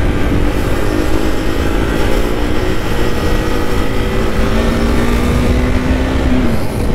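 Motorcycle engine running under way, with wind rushing over the helmet-mounted microphone. The engine note climbs slowly, then drops near the end.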